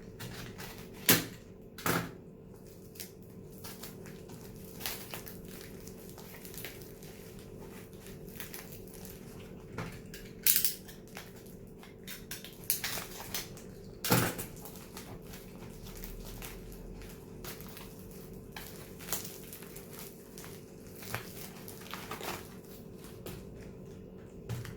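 Plastic mail packaging being torn open and crinkled by hand: irregular crackling and rustling with a few sharp snaps, the loudest about a second in and again at about fourteen seconds.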